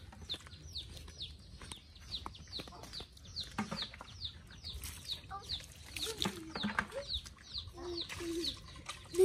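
Chicks peeping: a steady run of short, high, falling chirps, about three a second, with a few lower calls about six to eight seconds in.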